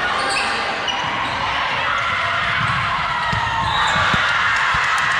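Indoor volleyball rally on a hardwood court: short thuds of the ball being played and players' feet hitting the floor, over steady voices and chatter in the gym.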